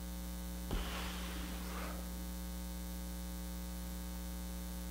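Steady electrical mains hum, with a faint thump about three-quarters of a second in followed by a brief soft rustle.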